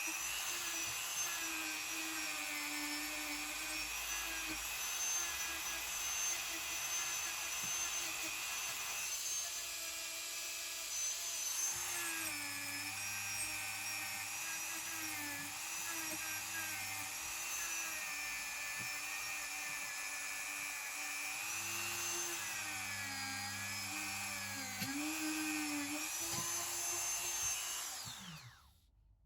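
Small high-speed rotary tool running, its whine dipping in pitch again and again as it is pressed against the work, then winding down and stopping near the end.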